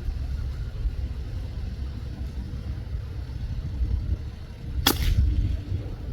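A single PCP air rifle shot, one sharp crack about five seconds in, over a steady low rumble.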